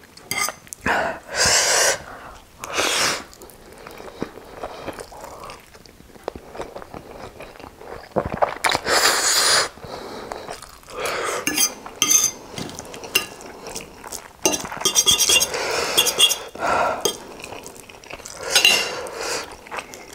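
Close-miked eating sounds: a metal fork and spoon clinking and scraping on a ceramic plate while twirling spicy instant noodles, broken by several loud noodle slurps of about a second each, with chewing in between.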